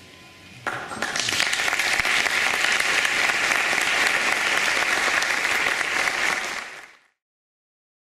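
Audience applauding, breaking out suddenly a moment after the ensemble's final chord has died away, then fading out near the end.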